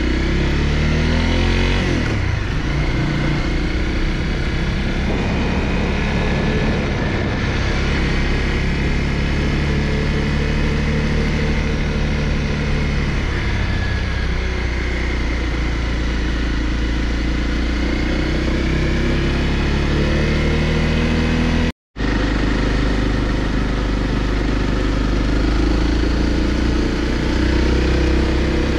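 Honda CRF250L single-cylinder dual-sport motorcycle engine running while ridden on the road, its pitch rising and falling with throttle and gear changes, under a steady rush of riding wind. The sound cuts out for a split second about two-thirds of the way through.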